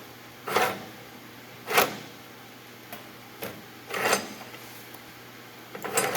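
A handful of separate short clunks and clatters, hard objects being handled or set in place, with quiet between them; the chop saw is not running.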